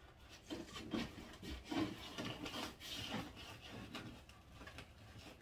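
Deco mesh rustling and crinkling as it is handled and bunched, in a run of irregular short scraping strokes.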